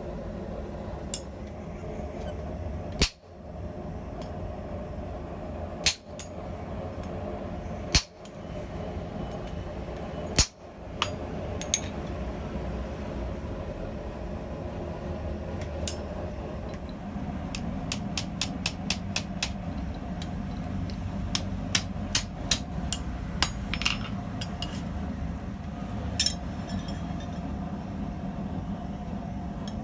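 Hammer blows on hot steel at the anvil while forging a blacksmith tong: four heavy strikes a few seconds apart, then a quick run of lighter taps, about five a second, after the middle, over a steady low hum.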